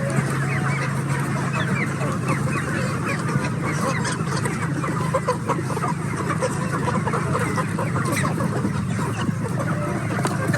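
A flock of chickens clucking and calling, many overlapping short calls, over a steady low hum.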